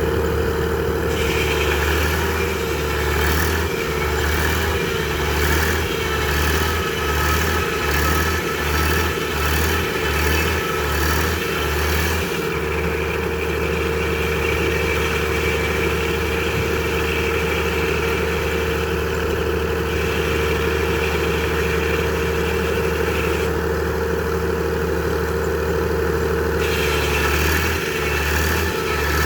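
A Frick sawmill running steadily under power, with engine-like noise and steady tones. A low throb pulses, speeding up to about two a second, from about four to twelve seconds in and again near the end.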